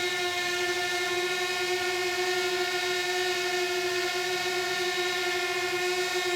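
DJI Mavic Air quadcopter's motors and propellers running with a steady, unchanging high-pitched hum.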